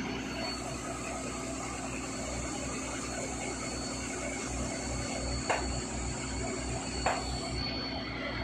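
Diesel engines and hydraulics of excavators working at a piling site, a steady low running rumble. Two sharp knocks about a second and a half apart come in the second half.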